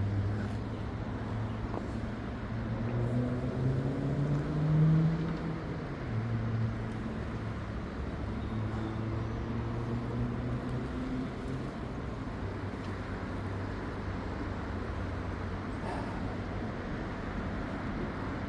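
A motor vehicle engine running at a low, steady hum. Its pitch rises a few times in the first half, then holds steady.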